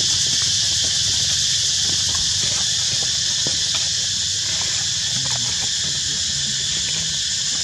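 Steady high-pitched drone of insects, unbroken and even, with scattered small clicks and rustles from close by as the monkey handles a lotus seed pod.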